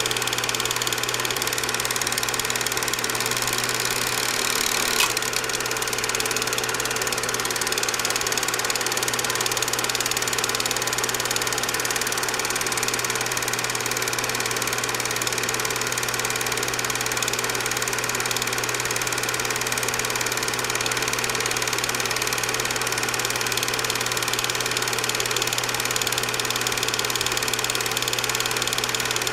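Cine film projector running: a steady mechanical whirr and rapid clatter with a constant hum, and a single brief click about five seconds in.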